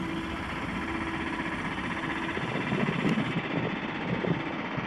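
ŁKA Impuls 2 (36WEd) electric multiple unit running along the station tracks, a steady electric hum that stops about halfway through. In the second half, low gusty rumbling from wind on the microphone takes over.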